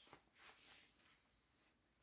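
Near silence with a few faint, brief rustles of a nylon jacket being handled, in the first second.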